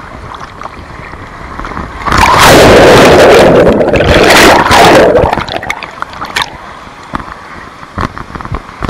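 Water rushing and splashing hard for about three seconds, starting around two seconds in, as a rider on a mat water slide comes off the end of the slide into the water.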